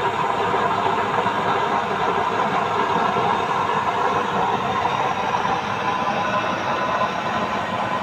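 Homemade cement waste-oil stove burning under forced air from a small electric blower: a steady rushing noise of fan and flame.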